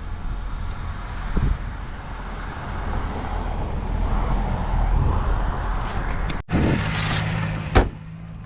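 A car running on the road, with a steady low rumble. After an abrupt break the engine settles into a steady drone, and there is a sharp click near the end.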